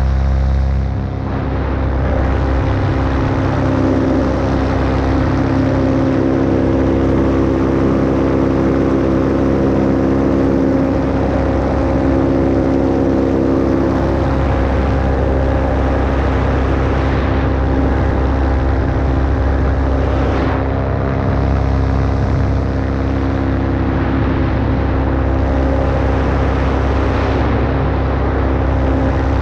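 Paramotor engine and propeller running steadily in flight, with wind rushing over the microphone.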